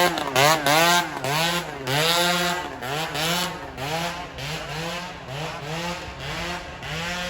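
Tour bus basuri (telolet) horn playing a tune of pitched notes, about two a second, each swooping up and down in pitch, growing fainter after about two seconds.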